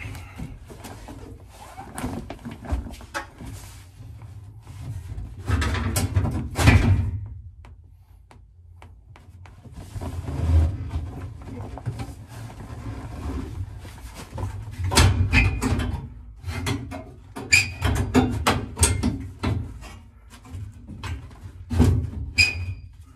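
Irregular knocks, clicks and scraping of parts being handled and worked into place by hand inside a car's rear interior, in short bursts, with the loudest scraping about six seconds in and a run of sharp clicks in the second half.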